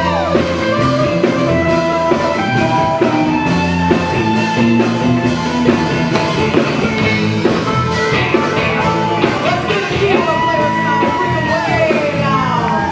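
Live rock band playing a loud jam, with a lead line of long held notes that bend up and fall back.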